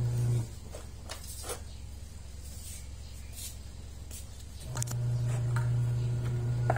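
A steady low electric hum cuts off about half a second in and comes back near the five-second mark. Meanwhile a hand tool on the washing machine's rusty metal pulley and motor bracket gives a few light clinks and scrapes.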